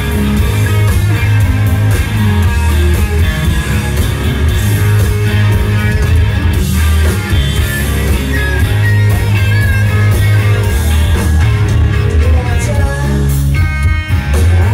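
Hard rock band playing loud live: electric guitars, bass and drums driving a song, heard from within the crowd of a small club.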